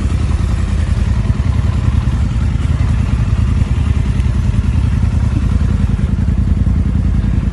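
Quad bike (ATV) engine running steadily under way, a low, even engine note with a fast pulsing that holds at one pitch throughout.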